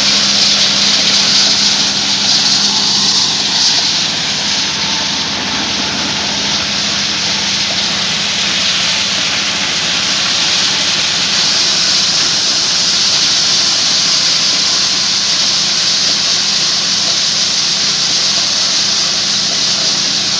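High-speed maize sheller running under load, its 16 hp engine driving the shelling drum as cobs are fed through: a steady low engine hum under a dense, rushing rattle of cobs and kernels passing through the machine.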